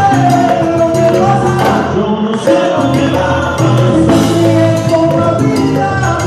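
Live salsa band playing, with singing, a busy bass line and percussion.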